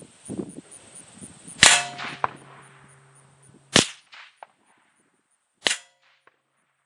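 Rifle fire at a steel target: three sharp cracks about two seconds apart from a VEPR 7.62x54R rifle and its bullets striking steel plate. The first crack is followed by the plate ringing for about two seconds, and the last rings briefly.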